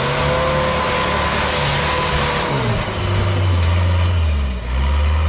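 Modified four-wheel-drive truck's engine revved hard at full throttle on a wet hill climb, held at high revs over a steady rushing noise of the wheels scrabbling for traction. About three seconds in the revs drop back to a lower, steady pitch.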